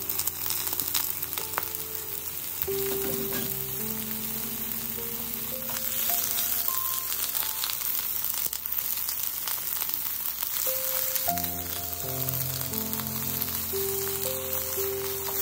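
Blanched, drained mustard greens sizzling as they are dropped into hot oil in a wok and stir-fried, with the spatula clicking and scraping against the pan. Soft background music with held notes plays alongside.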